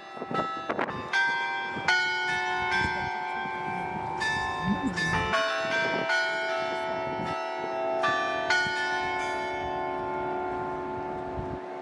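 Bells ringing: a run of struck notes at changing pitches, about two strikes a second, each note ringing on and overlapping the next, then dying away near the end.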